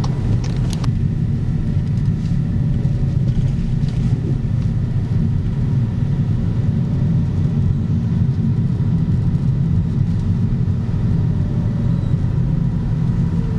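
Skoda car on the move, a steady low engine and road rumble heard from inside the cabin, with a single click just under a second in.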